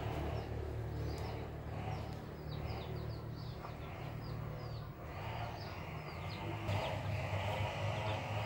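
Ducklings peeping: many short, high, falling peeps in quick succession, over a steady low hum. A louder rustling hiss joins in the second half.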